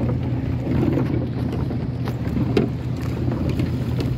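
Steady low drone of a boat engine out on the water, with wind buffeting the microphone and a few light knocks.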